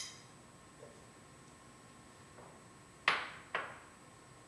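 A short click at the start, then two sharp knocks about half a second apart a little over three seconds in: kitchenware knocking against a hard surface.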